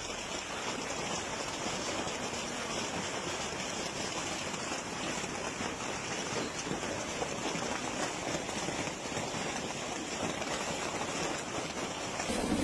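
Hailstones falling and striking hard surfaces: a steady, dense rush of many small impacts. A louder, lower noise joins right at the end.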